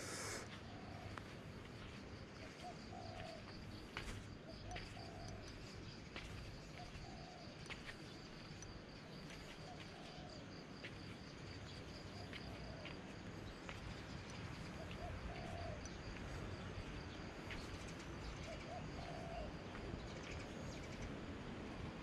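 Doves cooing, short low coos every second or two, over a steady high-pitched pulsing trill.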